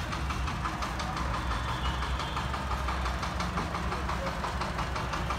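An engine idling steadily: a low hum with a fast, even pulse.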